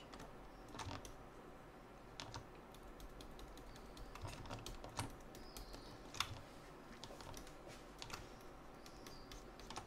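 Faint, irregular clicks of a computer keyboard and mouse, roughly one a second, over a low steady hum.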